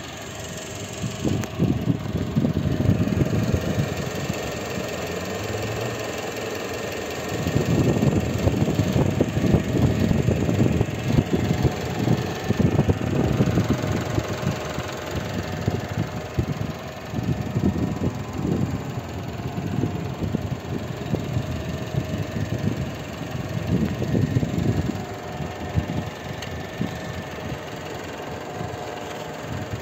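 Renault Modus 1.2 petrol four-cylinder idling steadily under the open bonnet, with wind buffeting the microphone in uneven gusts.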